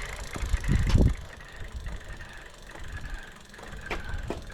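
E-bike rear drivetrain turning in top gear with clicks and a faint whine, the chain slapping against the rear tyre because the rear wheel has shifted in its dropouts on a loose axle nut. A dull low thump about a second in.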